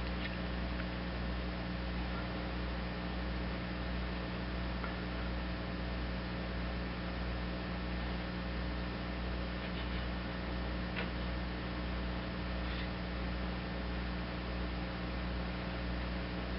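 Steady electrical mains hum with a low buzz, with a few faint small clicks.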